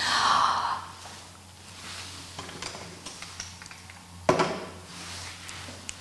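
A woman draws in one deep breath, then holds it, leaving only faint room sound with small clicks. About four seconds in there is a single sharp knock.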